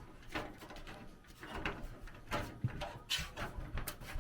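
Scattered light clicks, knocks and scrapes of a PC case's back side panel being unclipped and lifted off.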